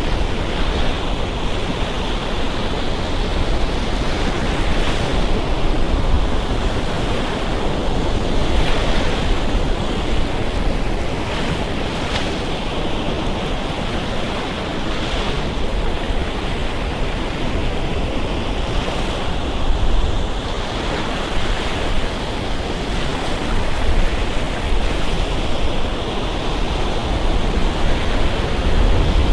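Ocean waves breaking and washing up on a beach: a continuous rush of surf that swells and ebbs, with brief louder hissing crests now and then.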